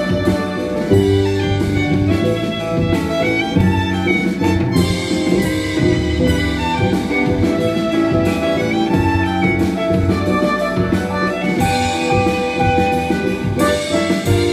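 Live violin and double bass duet: the violin plays the melody over the double bass line, in a pop-classical style.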